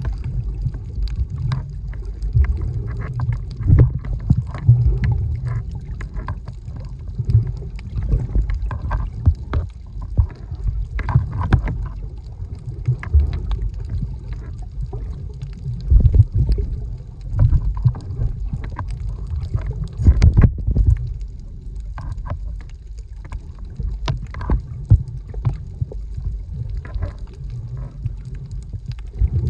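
Muffled underwater water noise heard through a submerged camera: a low rumble of moving water that swells irregularly, with scattered faint clicks and crackles.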